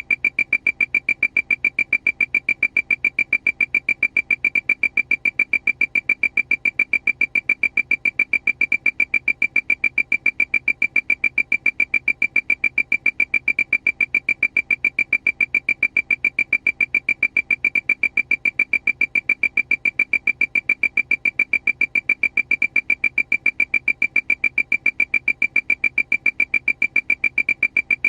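Aircraft warning alarm: a single high-pitched beep repeating rapidly and evenly, several times a second, without change.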